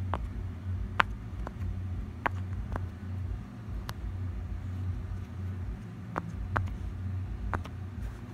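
Silicone push-pop fidget toy's bubbles pressed one by one, giving about nine short popping clicks at uneven intervals, with a pause of a couple of seconds midway. A steady low hum runs underneath.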